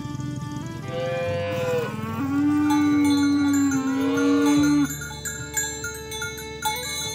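An ox moos once in a long, loud call, starting about a second in and breaking off just before five seconds, over background music with chime-like notes.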